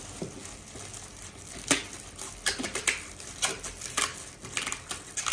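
Clear plastic bag crinkling as it is handled and pulled off a boxed pair of headphones, in irregular sharp crackles.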